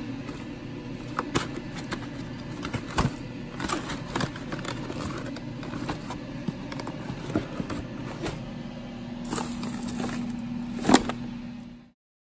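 Cardboard box and plastic food packaging being handled and opened by hand: irregular crackling, scraping and clicking over a low steady hum, with one sharp louder click near the end. The sound cuts off abruptly just before the end.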